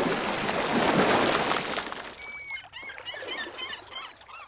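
A loud rushing noise fades out over the first two seconds. Then comes a short whistle and a quick run of high bird chirps, which stop near the end.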